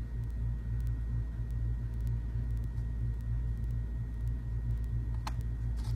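Steady low rumble and hum of background noise, with one brief faint sound about five seconds in.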